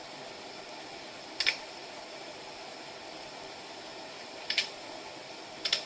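Steady fan-like hiss of room noise, broken by three short sharp clicks: one about one and a half seconds in, one past four and a half seconds, and one just before the end.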